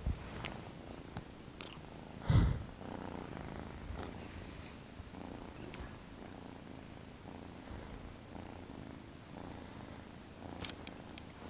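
Kitten purring steadily close up, a low continuous rumble. About two seconds in there is one brief loud bump, with a few faint clicks near the end.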